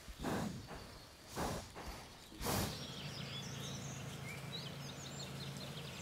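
Three short rushing bursts of noise about a second apart, then woodland birds chirping over a steady low hum from about halfway on.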